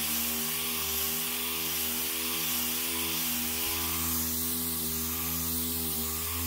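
Air-powered random orbital sander running steadily while sanding car paint with 800-grit hook-and-loop paper on an interface pad: a steady hum with an even air hiss, its pitch wavering slightly as it is pressed and moved.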